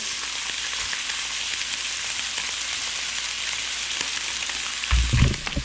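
Fish fillets frying in melted butter in a pan: a steady sizzle with fine crackling. A couple of low thumps come near the end.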